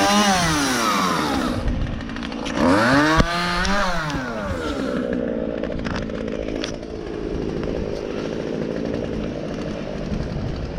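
Two-stroke chainsaw revved up and back down twice, then running more steadily at lower speed.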